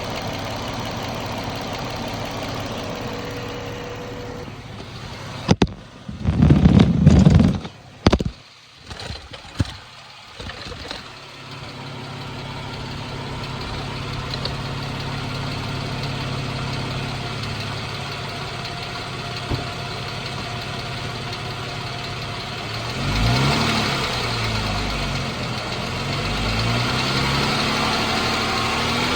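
A 2014 Jeep Wrangler's 3.6 Pentastar V6 idling steadily with a ticking noise, which the owner cannot yet place as a rocker arm or valve tick. About six seconds in, a few seconds of loud knocks and rustling cover it before the idle comes back.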